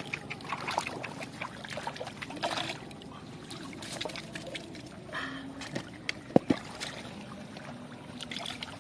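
Water splashing and trickling, with many small splashes and drips, and two sharp slaps about six and a half seconds in.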